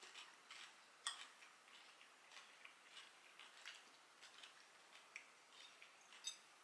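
Faint, irregular clinks and taps of forks and knives on breakfast plates, the sharpest about a second in.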